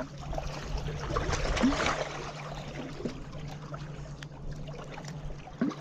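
Lake water washing against the bank in waves, swelling to a louder wash about a second and a half in, over a steady low hum.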